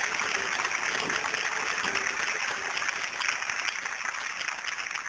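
Theatre audience applauding, a steady dense clatter of many hands clapping.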